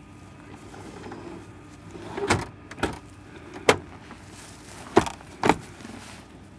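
Helicopter cabin door being handled and latched shut: five sharp knocks and clicks over about three seconds, the loudest two in the middle.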